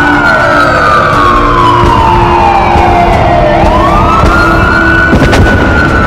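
Wailing sirens, several overlapping, each quickly rising in pitch and then sliding slowly down, with a short thump about five seconds in.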